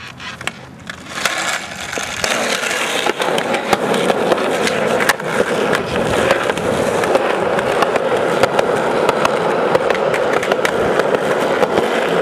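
Skateboard wheels rolling over rough asphalt: a steady grinding roll that builds over the first couple of seconds as the board picks up speed, with scattered sharp clicks as the wheels pass over cracks and grit.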